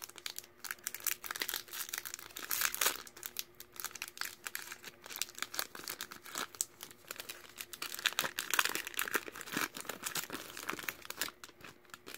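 Foil Yu-Gi-Oh! booster pack wrapper crinkling and tearing as it is ripped open by hand, in a steady run of irregular crackles.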